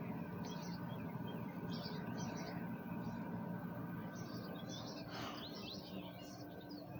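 Birds chirping intermittently in the background, short scattered calls over a steady low hum of outdoor noise.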